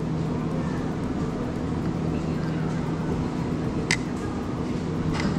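Steady low hum under a murmur of background voices, with one sharp clink about four seconds in, like tableware.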